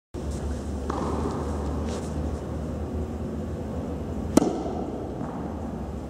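A tennis serve: the racket strikes the ball once, a single sharp crack about four seconds in, over a steady low hum.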